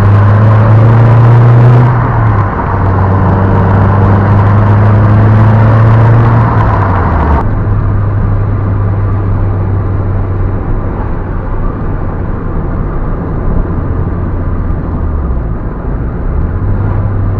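Lotus Elise S2's Rover four-cylinder engine running under load at fairly steady revs. The pitch rises a little early on, then drops to a lower steady note about seven seconds in, with a brief dip near the end.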